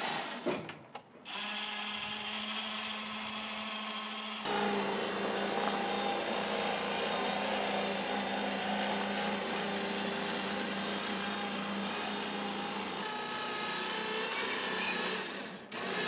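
Small electric drive motor of a homemade walk-behind backhoe carrier running steadily under load, a steady whine with a low hum, after a brief dip about a second in.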